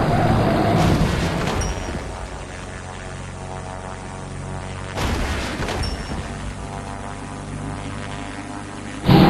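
Cartoon soundtrack: music with booming sound effects. A loud rumbling noise eases off about a second in, and a sudden boom comes about five seconds in over a steady hum.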